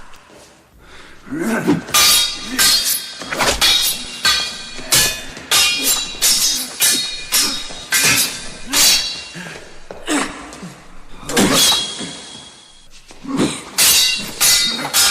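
Steel swords clashing over and over: sharp metal-on-metal strikes in irregular flurries, each leaving a short ringing tone. There is a brief lull about two-thirds of the way through before the blows resume.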